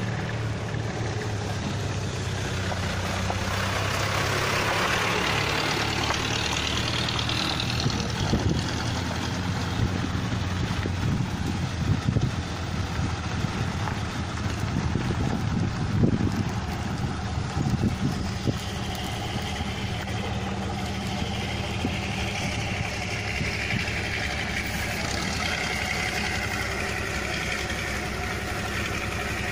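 Large rice combine harvester running steadily: an engine drone with a noisy hiss over it, and a few sharp knocks around the middle.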